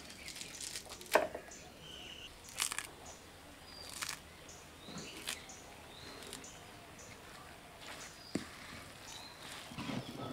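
Fresh coriander being picked apart by hand: a few crisp snaps of stems and leaf rustles, the sharpest about a second in. Faint bird chirps can be heard in the background.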